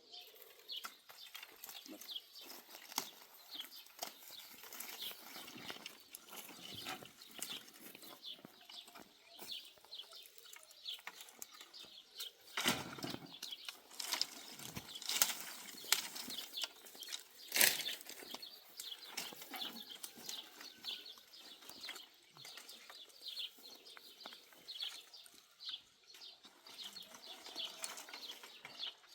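Irregular rustling with many light clicks and knocks, and a few sharper knocks around the middle.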